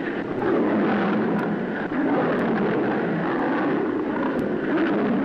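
Lion and tiger growling and snarling as they fight, a continuous dense rumble on an old film soundtrack.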